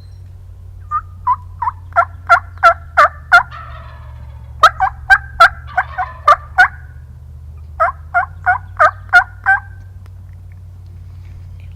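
Wild turkey yelping: three runs of about seven or eight sharp yelps each, roughly three a second, every note breaking from high to low.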